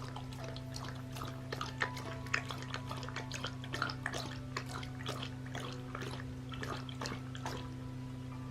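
Pet water fountain running: its small pump hums steadily while water trickles and drips into the bowl in many small irregular splashes.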